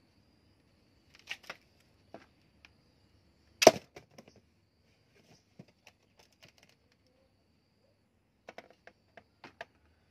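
Wooden knocks and clicks from a homemade wooden speargun being handled on a wooden bench, with one sharp knock a little over a third of the way in and a quick run of light clicks near the end.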